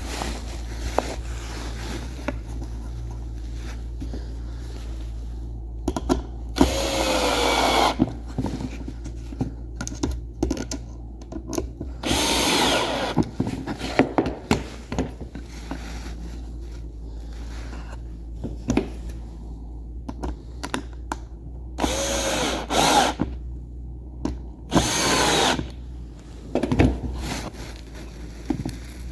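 Power drill driving screws into wood: four short runs of the motor, a second or two each, with clicks and knocks from handling the parts between them.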